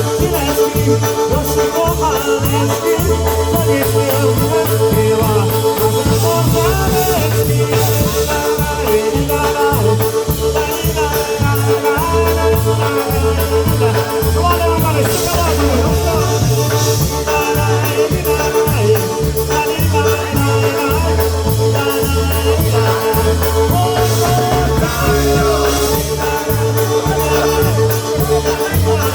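Live polka band playing an up-tempo tune, with a steady alternating bass line under a long held note and melody lines.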